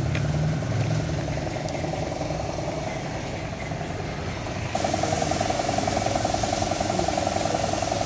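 A machine's motor running steadily with a fast, even pulsing hum, which gets louder after a cut about five seconds in.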